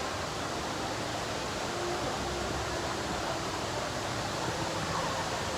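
Waterfall's falling water making a steady, even rush, with faint murmur of distant voices in the background.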